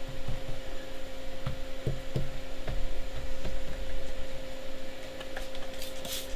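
Scattered light knocks and clatter from handling work on the hull, over a steady electrical hum. A short hiss near the end.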